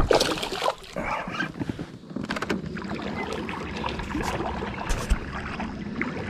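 A hooked bass thrashing and splashing at the water's surface beside the boat, loudest right at the start. It is followed by a steady wash of water noise with scattered small knocks and clicks.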